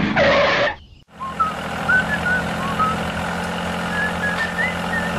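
A tractor engine running steadily with a low hum, for the toy tractor driving along the sand track, with scattered short high chirps over it. The sound drops out briefly about a second in, then the hum resumes.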